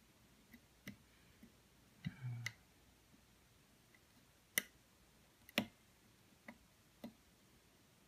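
Lock-picking tools working in an American Lock 700 series padlock's five-pin core: scattered sharp metallic clicks at irregular intervals, the two loudest near the middle, with a short muffled knock about two seconds in.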